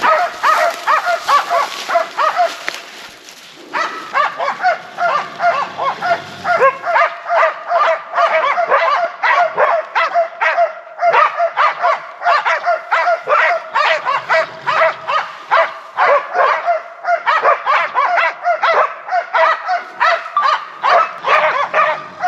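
Hunting laikas barking rapidly and without let-up, several barks a second, with a brief lull about three seconds in. This is a bay: the dogs are holding a bear in place.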